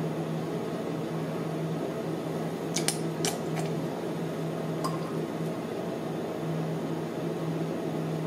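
Steady low hum under a few faint short clicks and squishes, about three and five seconds in, as fragrance oil is dispensed by plastic pipette into a plastic pitcher of melted melt-and-pour soap base.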